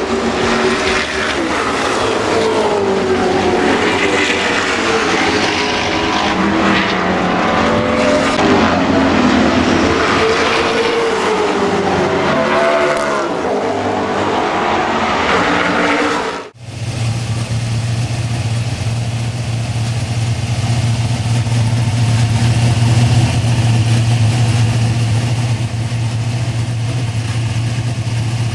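V8 race cars on the circuit, their engine notes rising and falling through gear changes as they go past, for about sixteen seconds. Then, after a sudden cut, a race car engine idling steadily.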